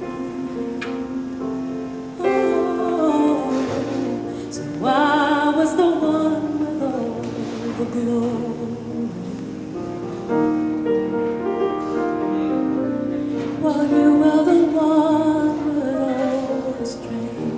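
A woman singing a slow song with long held, gliding notes over sustained instrumental accompaniment.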